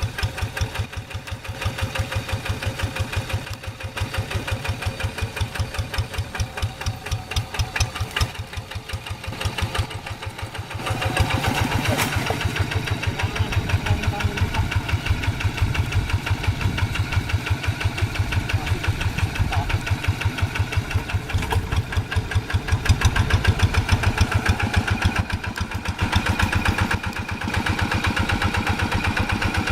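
Diesel engine of a two-wheel hand tractor chugging steadily with a rapid, even beat while plowing paddy mud, working harder and louder from about eleven seconds in.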